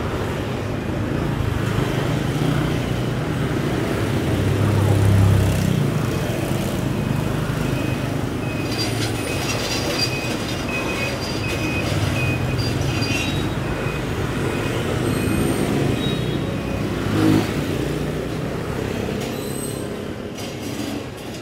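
Steady street traffic noise with a low engine rumble, swelling as a vehicle passes close about five seconds in. Thin high squeaks come and go in the middle.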